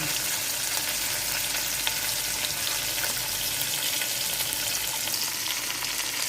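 Hot cooking oil sizzling steadily in a pot, with small scattered crackles, as food fries in it.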